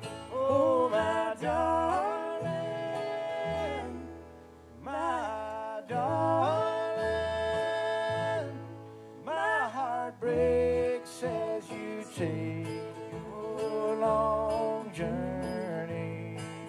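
Live bluegrass band playing: a woman sings lead over strummed acoustic guitar and mandolin, with low bass notes underneath. Her singing pauses for about a second near the four-second mark and then resumes with long held notes.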